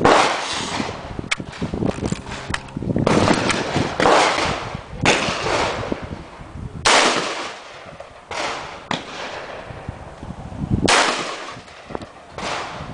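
AR-style semi-automatic rifle firing single shots at an unhurried, uneven pace, roughly one to two seconds apart, each crack trailing off in a long echo.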